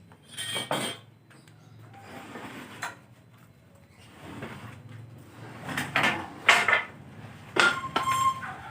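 Irregular knocks and clatter of wooden pieces and tools being handled in a woodworking shop. A brief metallic ring comes near the end.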